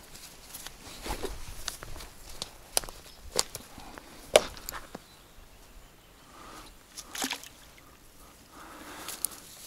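Mesh fishing keepnet being unfolded and lowered into the water: rustling of the net with a string of sharp clicks and knocks from handling it and its rings, the loudest about four seconds in.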